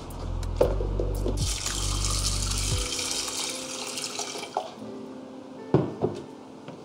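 Water running from a tap into a sink, shutting off about three seconds in, followed by two sharp knocks near the end.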